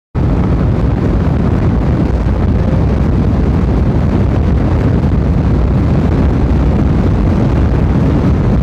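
Steady, loud wind rush over a helmet-mounted microphone as a Yamaha FZ-S V3 motorcycle is ridden at full throttle at about 107 km/h. The engine runs underneath the wind noise.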